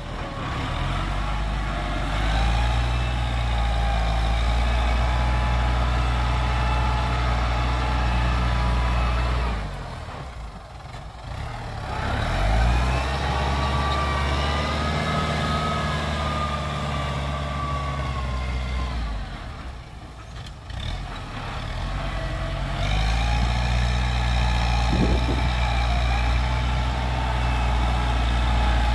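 Kubota tractor's diesel engine working under load as it pushes dirt with its front blade, with a higher whine riding on the engine note. The engine eases off twice, about a third and two-thirds of the way through, and then comes back up to working speed.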